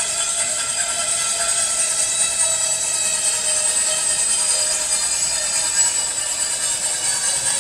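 Steady instrumental music: a sustained, even texture with no clear beat and no sharp hits.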